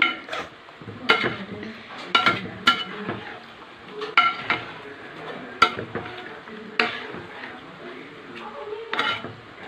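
A metal ladle stirring chicken curry in a large metal pot. It scrapes through the curry and strikes the pot with sharp ringing clinks at uneven intervals, about once a second, over the steady bubbling of the boiling curry.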